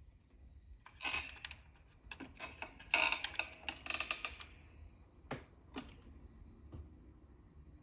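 Light clicking and tapping of small metal lock parts and tools being handled on a work surface, in two quick clusters followed by a couple of single clicks.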